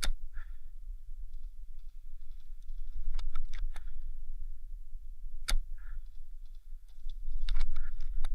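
Airsoft guns firing. A sharp single shot comes at the start and another about five and a half seconds later, with clusters of quicker clicks around three seconds in and near the end, over a steady low rumble.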